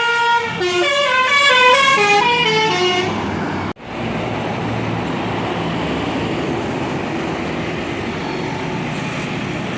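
A bus's telolet horn plays a quick tune of short stepped notes, several tones at once, for about the first three and a half seconds. After a sudden cut comes the steady engine and road noise of a passing vehicle.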